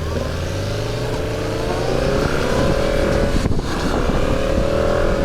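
Motorcycle engine pulling under acceleration as the bike is ridden, its pitch rising steadily, breaking off briefly about three and a half seconds in as it shifts up, then rising again. Wind noise rushes over the microphone throughout.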